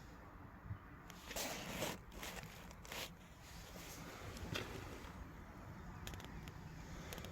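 Faint footsteps: a few scattered scuffs.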